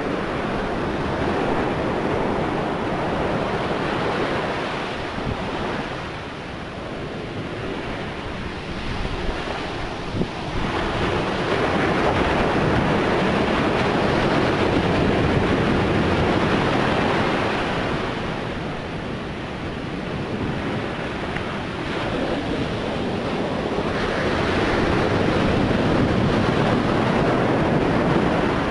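Storm surf breaking on the beach at high tide, a steady rush that swells and eases in two long surges, with wind buffeting the microphone.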